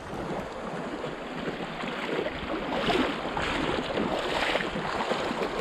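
Sea waves washing onto the shore, the surf swelling louder about halfway through, with wind on the microphone.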